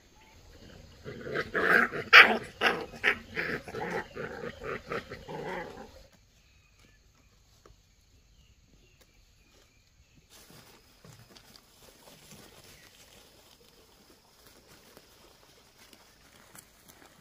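Puppy yelping and barking in a rapid run of short cries, about three a second, for about five seconds, then stopping abruptly.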